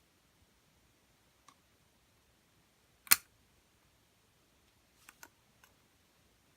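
Clicks from handling a laptop: one sharp click about three seconds in, a faint tick before it, and three fainter clicks in quick succession about two seconds later.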